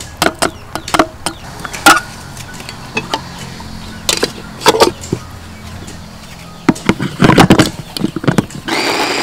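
Sharp plastic and metal clicks and knocks as shrimp go into a stainless-steel electric food chopper and its plastic lid and motor head are fitted. Near the end the chopper's motor starts and runs with a steady whine.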